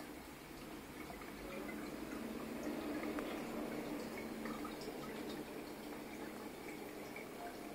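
Marine aquarium water circulating, with a steady trickling and dripping over a faint steady hum.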